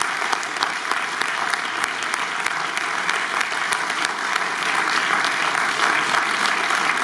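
Audience applauding steadily, many individual claps blending together.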